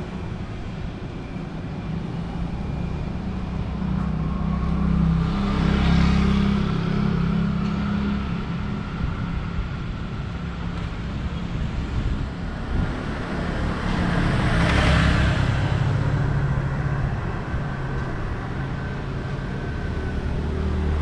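Street traffic: a steady low engine hum, with vehicles passing about six and fifteen seconds in.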